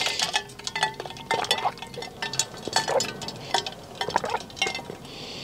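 Someone sipping pre-workout through a straw from a large tumbler: soft sips and swallows with many small, irregular clicks.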